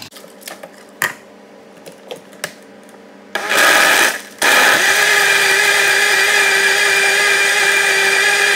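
A few clinks and knocks as ice cubes drop into a plastic blender jar. A little over three seconds in, the countertop blender starts with a short burst, dips briefly, then runs steadily at full speed, crushing the ice into a watermelon shake.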